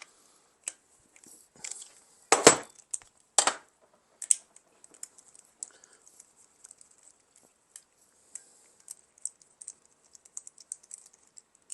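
Hand tools and bolts clicking and clinking against the metal of a 13B rotary engine as it is unbolted, with two louder metal knocks a few seconds in, then light, irregular ticks.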